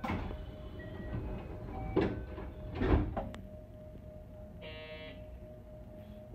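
Sounds inside a JR West 321 series electric train: a steady electrical hum, two loud knocks about two and three seconds in, and a short buzz just before the five-second mark.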